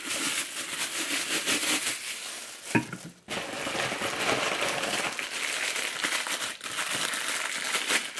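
Plastic packaging crinkling and rustling as a plastic mailer bag is handled and a water bottle and its lid are pulled out of plastic wrapping, with a single knock about three seconds in.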